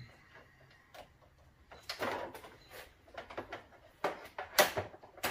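Faint handling noise: scattered rustles and light clicks as a handheld power-probe circuit tester and its test leads are moved about.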